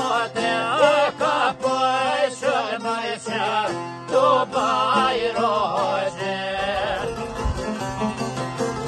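Albanian folk song: a man's singing voice with ornamented, wavering lines over strummed long-necked lutes, a çifteli and a sharki. The voice stops about two-thirds of the way through, and the lutes play on alone.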